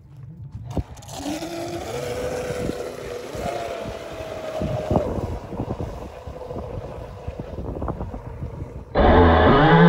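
Traxxas M41 Widebody electric RC catamaran speeding off across the water, its motor a faint whine that rises in pitch over wind noise on the microphone. Near the end the sound jumps much louder as the motor is heard close up.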